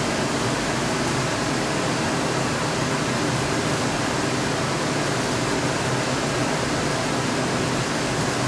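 A steady, even hiss of rushing air that does not change.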